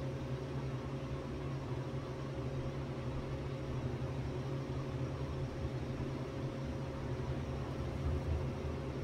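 Steady machine hum: a low drone with a faint higher tone over a light hiss, even throughout, with no welding crackle.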